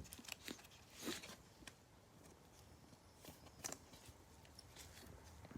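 Faint, scattered clicks and rustles of trading cards being handled and flipped through, over near silence.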